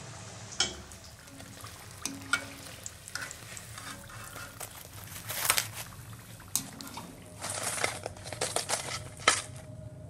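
Samosas deep-frying in hot oil: a steady sizzle with frequent sharp pops and clicks, busiest in the second half.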